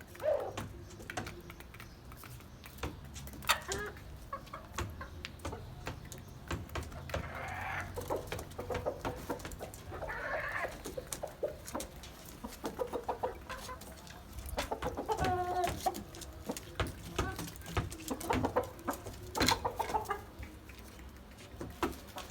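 Domestic hens clucking, with a louder call every few seconds over scattered short clicks.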